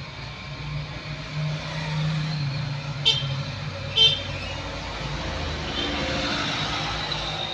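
Road traffic going by, with a vehicle passing and building up toward the end. There are two short high toots about a second apart, around three seconds in.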